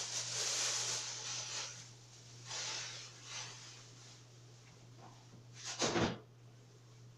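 Kitchen handling noises: a few short rustling, scraping sounds, then a single knock or thump about six seconds in, over a steady low hum.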